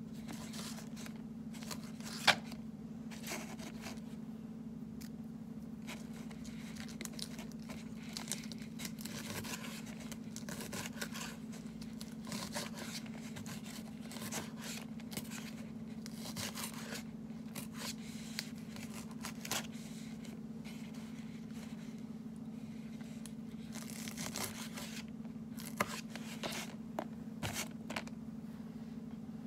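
Lettuce leaves being cut and pulled apart by hand: repeated crisp tearing and crackling, with scattered sharp clicks, the loudest about two seconds in.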